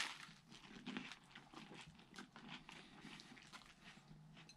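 Faint chewing of a mouthful of fish burger, with soft scattered crunches and mouth clicks.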